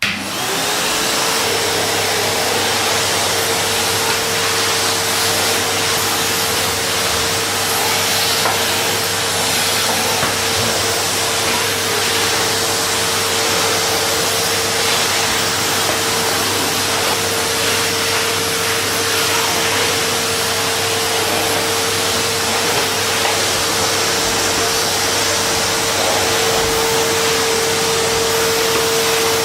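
Vacuum cleaner switched on: its motor spins up, the whine rising in pitch over the first second or so, then runs steadily with a loud rushing hiss of air.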